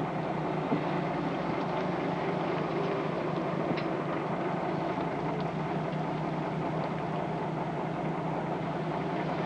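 A motor running steadily with a low, even drone, while the boat is being lifted.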